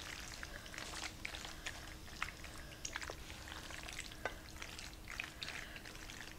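Thick, cheese-sauced macaroni sliding and squishing out of a glass mixing bowl into a glass baking dish as a wooden spoon scrapes it along, with many small soft clicks scattered throughout.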